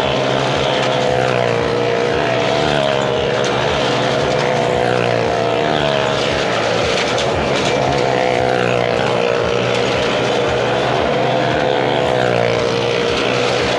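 Motorcycle engine running at steady high revs as it circles the vertical wooden wall of a well-of-death drum, its pitch wavering slightly with each lap.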